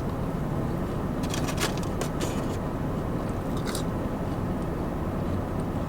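Steady low rumble of a parked car's idling engine heard inside the cabin, with a few short clicks and rustles in the first half.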